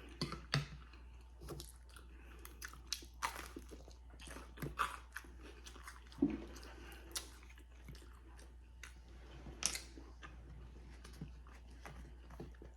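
A person chewing and biting food close to the microphone, with scattered wet clicks and crunches as it is eaten.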